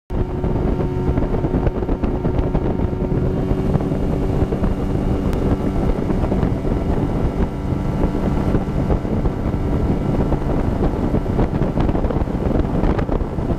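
A small boat's outboard motor running steadily with the boat underway, and wind buffeting the microphone.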